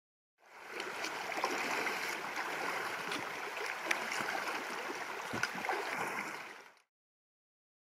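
Shallow river water flowing and gurgling over rocks, with scattered sharper splashes as a hiker wades through. The sound fades in about half a second in and stops just before seven seconds.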